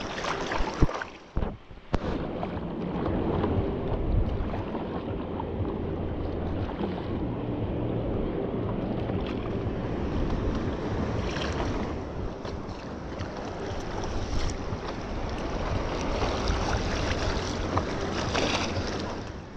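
Wind rumbling on the microphone over water sloshing around a stand-up paddleboard, with a few brighter splashes of paddle strokes.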